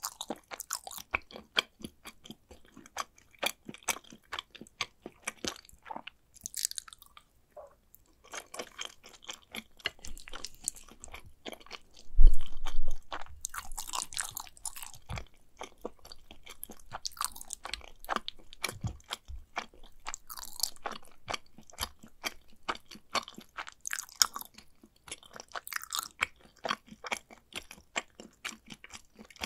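Close-miked chewing of macaroni and cheese: a steady run of wet mouth clicks and smacks, with one loud low thump about twelve seconds in.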